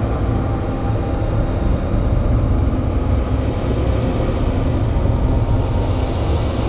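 Experimental noise-drone music: a dense, steady low rumble under a noisy haze, like machinery, with a higher hiss growing brighter about five or six seconds in.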